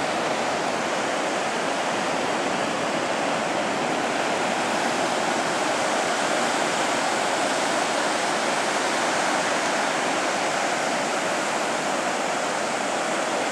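Ocean surf breaking on a sandy beach: a steady, even rush of waves with no distinct single crashes.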